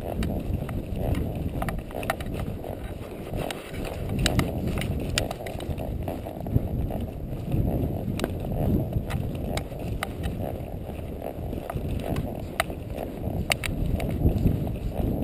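A ridden horse's hooves striking the trail in scattered sharp clops, under a steady low rumble of wind buffeting the microphone.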